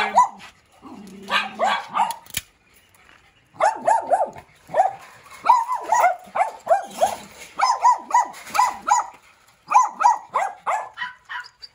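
Small dogs barking: quick runs of short, high barks with brief pauses between runs.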